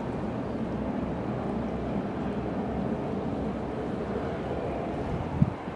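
Wind rumbling on the microphone over the low, steady noise of an Airbus A340's four jet engines on final approach, with one sharp low thump near the end.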